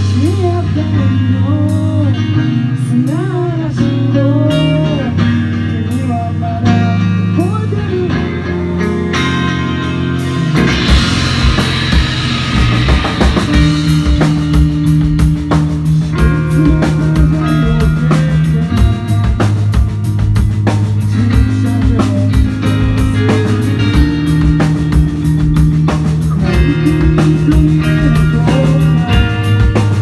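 Live rock band playing with electric guitar, bass guitar and drum kit. A sparser passage gives way about ten seconds in to the whole band playing harder, with cymbal crashes and busy drumming.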